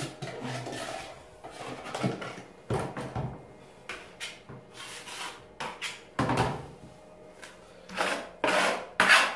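Steel putty knife and wide spatula scraping and spreading filler over a plastered wall in a series of short, irregular strokes, the loudest near the end.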